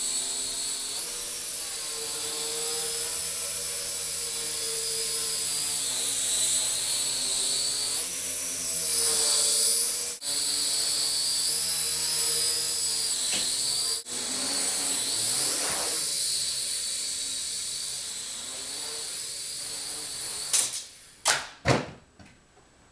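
Blade MQX micro quadcopter's four small motors and geared propellers whining in flight, the pitch rising and falling with throttle. Near the end come a few sharp knocks, and then the motors go quiet.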